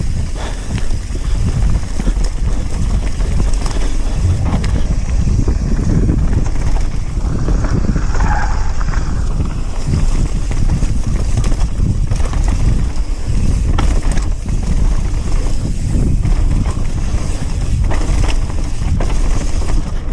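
Mountain bike riding a bike-park trail, with heavy wind rumble on the microphone, tyre noise and repeated clatters and knocks from the bike over rough ground. A brief higher-pitched squeak comes about eight seconds in.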